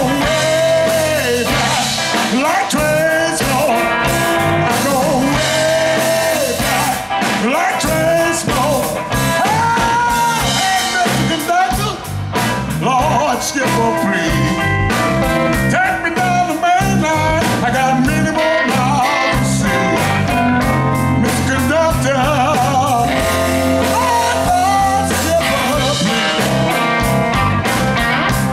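Live electric blues band playing over a steady drum beat and bass line, with a lead line of sliding, bending notes on top.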